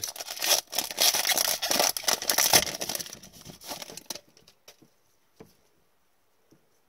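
A foil trading-card pack wrapper being torn open and crinkled by hand for about four seconds, then only a few faint clicks as the cards are handled.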